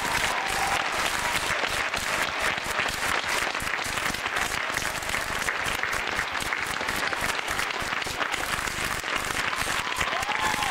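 Audience applauding steadily in a large arena.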